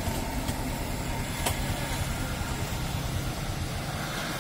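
Street traffic noise: a steady low rumble of passing road traffic, with a single sharp click about a second and a half in.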